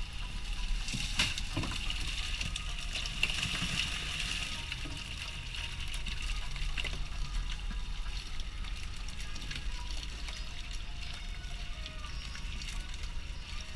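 Seawater splashing and dripping as a net full of horse mackerel is hauled over the side of a small fishing boat and the fish are tipped into a plastic tub, with many small wet slaps and clicks. A steady low hum from the boat's engine runs underneath.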